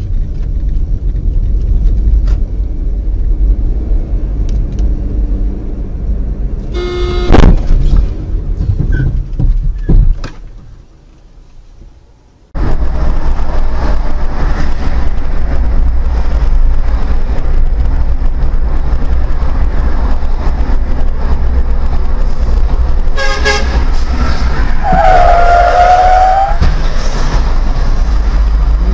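Dash-cam sound of a car on the road: a steady engine and road rumble, broken about seven seconds in by a loud sudden crash-like impact and a second knock a few seconds later. After a short quiet gap the road rumble resumes, and a car horn sounds near the end.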